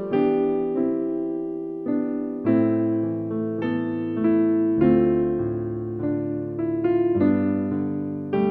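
Slow piano music: chords struck about every one to two seconds, each left to ring and fade before the next.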